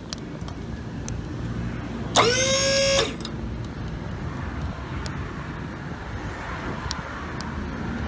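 A dump trailer's electric hydraulic pump motor, switched on from the wireless key fob, runs once for under a second about two seconds in: it spins up quickly to a steady whine and cuts off. Light clicks come and go around it.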